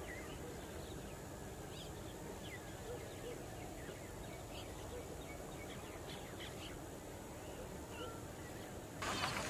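Many short bird chirps and calls scattered over a steady low background hiss. Near the end a louder, busier background cuts in abruptly.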